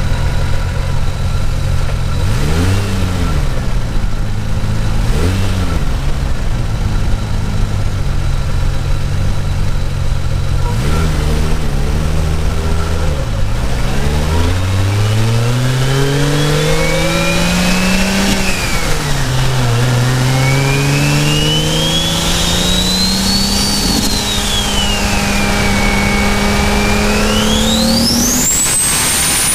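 Single-turbo Toyota Supra's 2JZ inline-six heard from a microphone in the engine bay: it runs low with a few short throttle blips, then pulls hard through two gears, the revs climbing, dropping at a shift, and climbing again. Above the engine, the turbo's whistle glides up and down with the boost and climbs steeply near the end.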